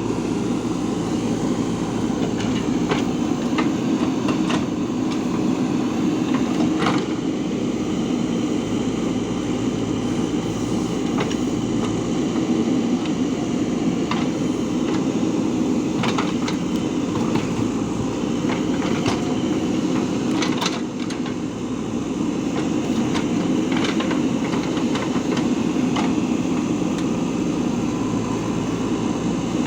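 Diesel engine of a JCB 3DX backhoe loader running steadily while working, with scattered sharp knocks and clanks throughout and a brief dip in level about two-thirds of the way in.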